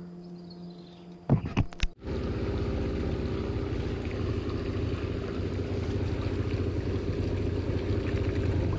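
A few sharp clicks, then from about two seconds in a small boat's outboard motor running steadily at low speed.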